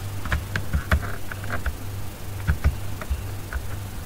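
About a dozen short clicks of a computer mouse, scattered and uneven, over a steady low electrical hum.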